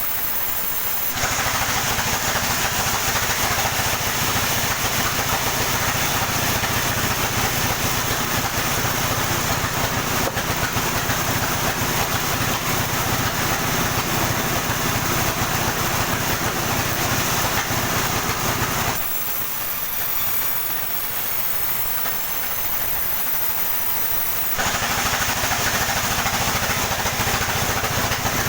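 Sawmill saw cutting through a coconut palm trunk over a steadily running motor. The cutting noise starts about a second in, stops for a few seconds around two-thirds of the way through while the motor keeps running, then starts again near the end.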